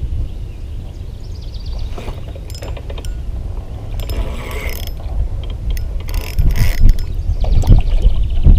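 Fishing reel being cranked in with a fish on, giving a ratcheting, clicking sound that grows louder toward the end. Wind rumbles on the microphone throughout.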